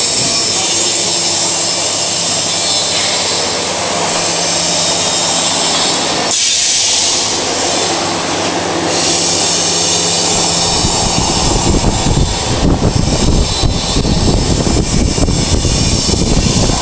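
Flange roll-forming machine running, steel strip passing through its forming rollers: a steady motor hum, a hiss for about three seconds midway, then a louder, rough, uneven rumble from about two-thirds of the way in.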